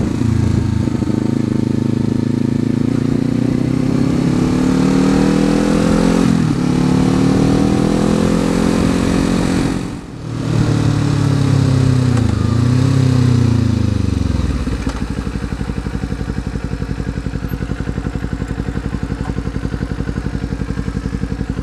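2019 Kawasaki Z400's parallel-twin engine under way, its pitch climbing with revs and dropping sharply at a gear change. After a brief dip, two quick rev blips follow, typical of downshifting. From about two-thirds of the way through it settles into a steady, lower, evenly pulsing idle.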